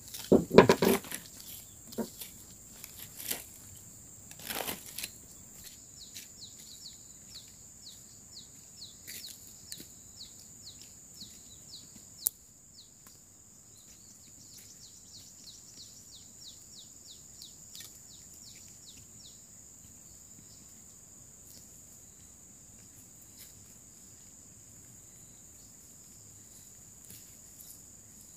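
Dry brush and burnt debris rustled and knocked about as ground is cleared by hand, loudest in the first few seconds. Then a long run of quick falling chirps, about three a second, runs for some thirteen seconds over a steady high insect drone.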